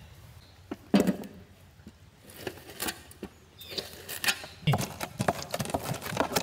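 Kiwi fruit being crushed with a metal hand masher in an aluminium pot: a single knock about a second in, then a run of irregular clicks and wet squishes as the masher presses the fruit against the pot.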